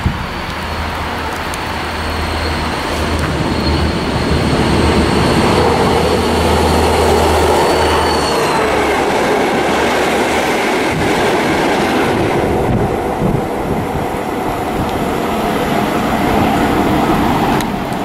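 A pair of locomotives passing close by at speed. A low steady hum and a high whine build as they approach, and the whine drops in pitch as they go by about eight seconds in. The loud rush and rumble of the wheels on the rails then carries on until near the end.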